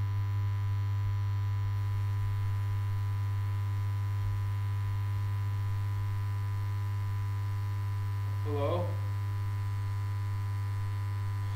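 Steady, low, buzzy electrical hum like mains hum, with a man's brief vocal sound about eight and a half seconds in.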